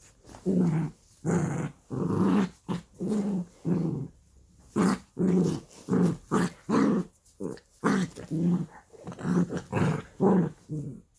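Small dachshund-type dog play-growling in a long run of short rumbling growls, about two a second, as she mouths and tugs at a hand and a plush toy. These are playful growls, not aggression.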